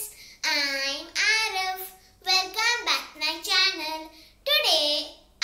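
A young boy's voice in four or five short sung phrases, high-pitched, with brief pauses between them.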